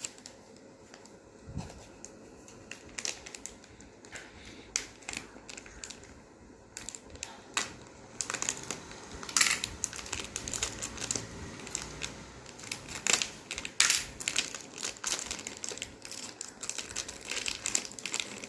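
Packaging being opened by hand: irregular crinkling and crumpling with small clicks and handling knocks, sparse at first and busier from about halfway through.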